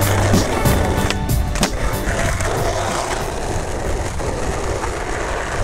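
Skateboard rolling over paved tiles, its wheels making a steady rolling noise. There are a few sharp clacks of the board in the first second and a half. Music plays over it.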